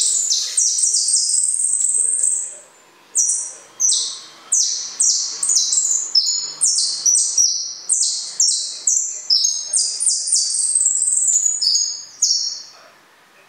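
Caged finch singing a long, fast twittering song of rapid high notes, with one short break about two and a half seconds in.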